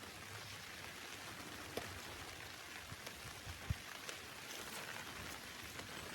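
Steady rain falling, with scattered individual drops tapping on a surface and two sharper drop hits about two and four seconds in.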